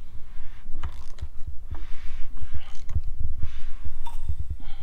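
SRT-4 engine being turned over by hand with a wrench and 19 mm socket on the crankshaft to check the timing: irregular clicks and knocks from the tool and the belt-driven parts, with low thumps.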